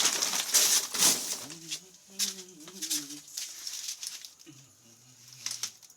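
Poultry in a shed: a burst of rustling and wing-flapping in the first second, then a few low drawn-out calls with some sharp clicks between them.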